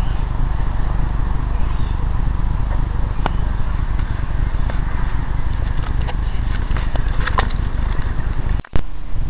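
Steady low rumble with scattered light clicks, and a sudden brief cut-out near the end: wind and handling noise on a handheld camera's microphone.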